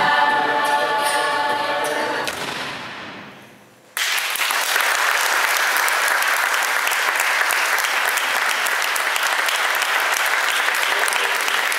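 Singing voices hold a final chord that fades away over the first few seconds. About four seconds in, audience applause starts abruptly and goes on steadily.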